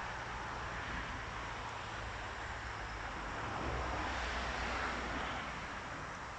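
Steady outdoor background noise with a low rumble, swelling a little about halfway through and easing near the end.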